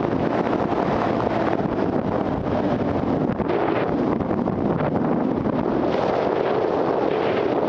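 Off-road motorcycle engine running during riding, heavily buffeted by wind noise on the microphone.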